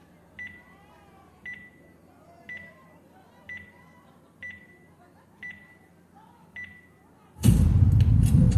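Logo-intro sound effect: seven short electronic pings about once a second, each a click followed by a fading high tone. About seven and a half seconds in, a sudden loud rush of noise with a heavy low end cuts in and is the loudest sound.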